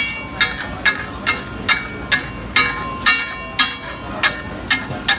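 A metal spatula striking a flat iron griddle (tawa) in a steady rhythm of about two ringing clanks a second, as the dosa filling is chopped on the griddle.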